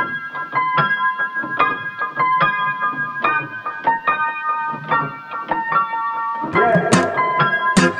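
Background music: an electric piano playing a repeating pattern of chords, with percussion hits joining about six and a half seconds in.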